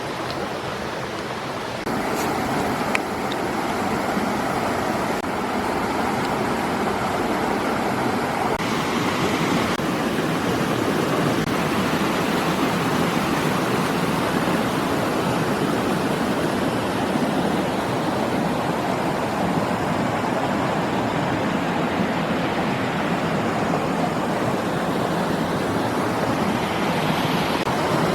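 A steady rushing noise that gets louder about two seconds in and then holds.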